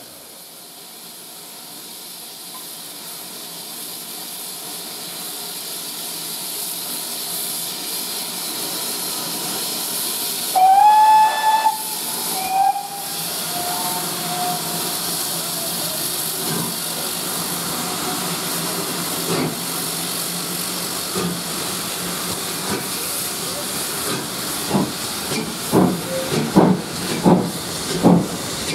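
Two GWR 4-6-0 steam locomotives, No. 7903 Foremarke Hall and No. 7820, hissing steam from the cylinders while standing. A whistle is blown about ten seconds in, followed by a shorter, lower whistle. Near the end the double-headed train starts away with exhaust beats that come quicker and louder.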